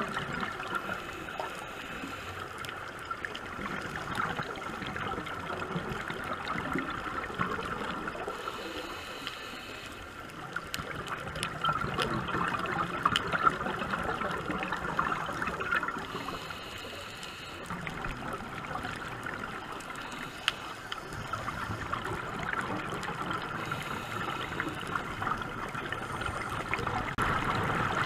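Underwater ambience picked up by a diving camera: a steady watery hiss with fine crackling clicks and gurgling, swelling louder twice.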